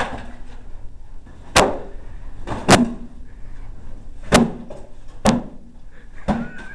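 Sharp whacks of homemade prop swords and shields striking cardboard-box armor in a mock swordfight, about six hits at uneven intervals.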